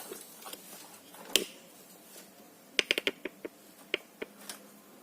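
Scattered sharp clicks and light knocks of computer hardware being handled and fitted: a single loud click about a second and a half in, then a quick run of several clicks near the three-second mark and a few more after.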